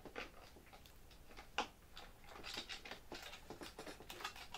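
Faint scattered clicks and light ticks of a screwdriver and screw being worked up into a screw hole under a foam model airplane's plastic tail mount, with one sharper click about one and a half seconds in.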